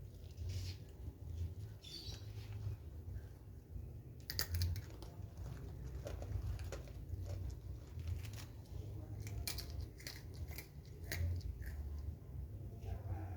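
Hands massaging a face close to the microphone: soft irregular clicks and short scratchy rubs of fingers on skin, a little denser from about four seconds in, over a low steady hum.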